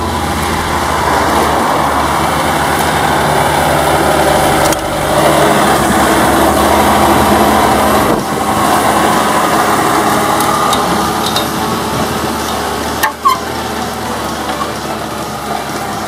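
John Deere 6210R tractor's six-cylinder diesel engine running steadily under load while pulling a five-furrow plough through the soil. The sound changes abruptly a couple of times, and there is one sharp knock about three-quarters of the way through.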